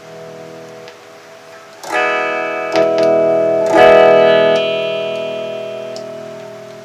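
Electric guitar played through an amplifier to test its newly installed wiring harness: three chords strummed about a second apart, the last one ringing out and slowly fading.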